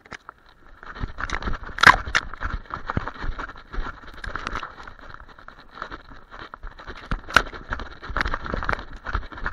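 A German Shepherd running through dry brush with a camera strapped to its back: a fast, uneven run of knocks, scrapes and crackles from its footfalls, brush sweeping past and the camera jolting on the harness, with a few sharper clacks about two seconds in and near the middle.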